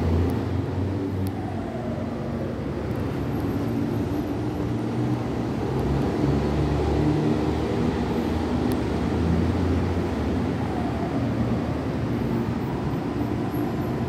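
Electric commuter train approaching a station platform: a steady low rumble of the train on the track, with a faint whine falling in pitch twice.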